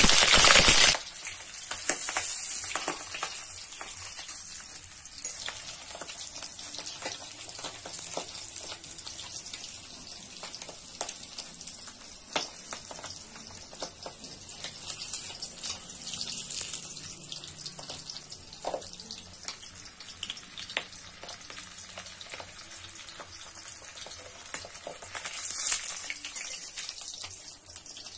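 A piece of fish frying in hot oil in a metal wok. There is a loud sizzle in the first second, and then steady sizzling and crackling.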